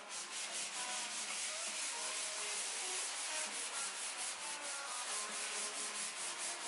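An abrasive scouring pad scrubbing back and forth over a rusty, acid-treated steel car panel: a steady rasping, about three to four strokes a second, as the surface rust is scoured off.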